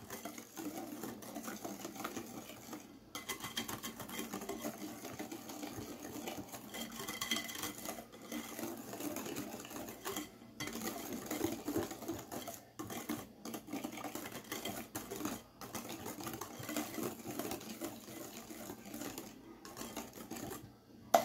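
Wire whisk beating eggs, sugar and oil in a glass bowl: a fast, steady rattle of the wires against the glass. It stops briefly a few times.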